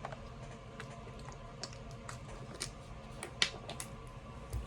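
Close handling noises: a scatter of small, sharp clicks and crinkles, with a soft low thump near the end.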